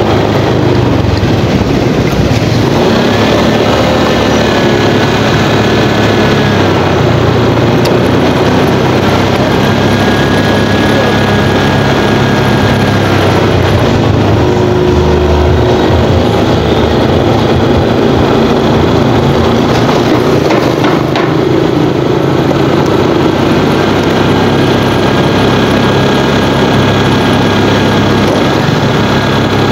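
Motorcycle on the move through city streets: steady engine and road noise with no pauses.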